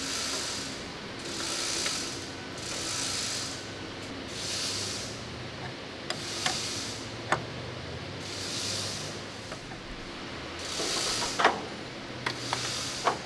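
Mechanical ratcheting in repeated strokes, roughly a second and a half apart with a pause midway, and a few sharp metallic clicks.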